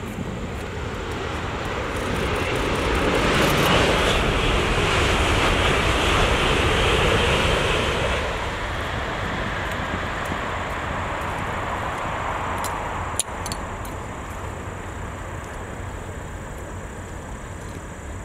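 Shinkansen bullet train passing at speed: a rushing noise that swells over the first few seconds, holds, and fades after about eight seconds. A single sharp click about thirteen seconds in.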